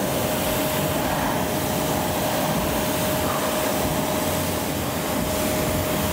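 Pressure washer spraying a jet of water onto a car's alloy wheel and tyre to rinse off wheel cleaner: a loud, steady hiss with a constant whine under it.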